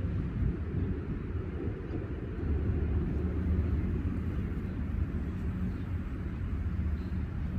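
Steady, uneven low rumble of outdoor seaside ambience, typical of wind on the microphone.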